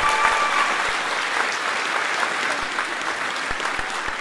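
Audience applause, slowly easing off. A high held call rings over it for about the first second.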